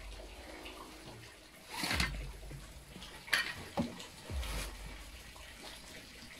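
Rustling of a thick blanket being handled and tucked around a dog: several separate swishes with dull low bumps, over a steady faint hiss.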